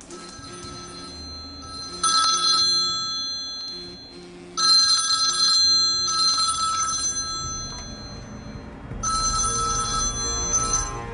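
Telephone ringing in four rings of about a second each, the first about two seconds in, with faint background music underneath.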